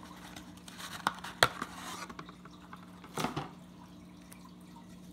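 Baseball card packs and cards being handled: a few sharp clicks and snaps about a second and a half in, then a brief rustle just after three seconds, over a faint steady hum.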